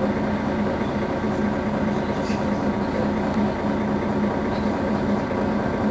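Mercedes-Benz Citaro Facelift city bus engine idling at a standstill: a steady running sound with a constant hum.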